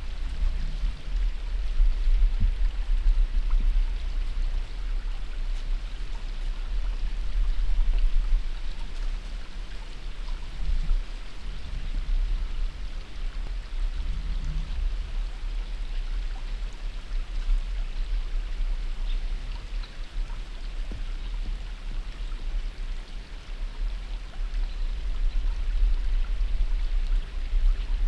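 Steady rain falling, an even hiss with scattered faint drop ticks over a constant low rumble.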